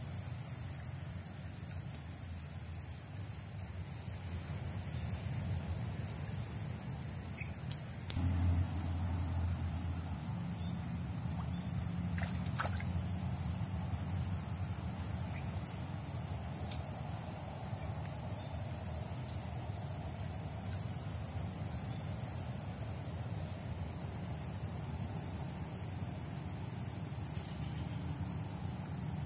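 Swamp insect chorus, a continuous high-pitched buzz that holds steady, over a low steady rumble.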